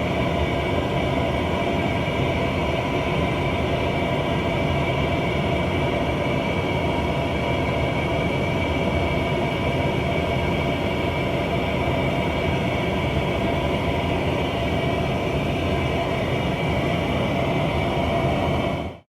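Steady, unchanging aircraft drone: an even rumble with several steady tones above it, cutting off near the end.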